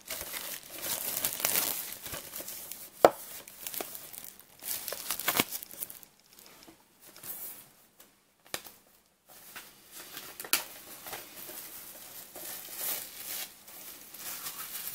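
Clear plastic shrink-wrap being torn and peeled off a 4K Blu-ray steelbook case, crinkling in irregular spells with a few sharp clicks and short pauses.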